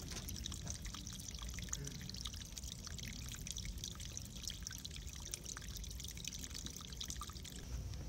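Water trickling, with many small irregular drips and splashes over a low steady rumble. The trickling stops shortly before the end.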